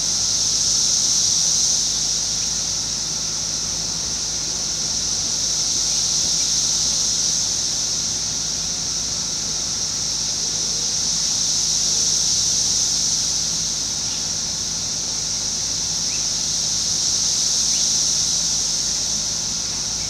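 Chorus of Brood X periodical cicadas (17-year cicadas): a steady high-pitched whine from masses of males singing together, swelling and fading every five to six seconds.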